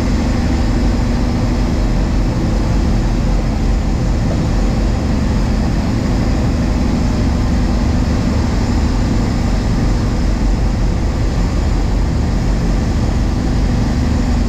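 Cargo boat's engine running steadily, loud and unbroken, with a rushing noise over its low drone.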